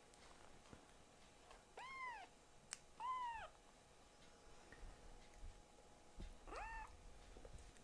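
Young kitten mewing three times, short high mews that rise and fall, in protest at having its claws trimmed. A single sharp click comes between the first two mews.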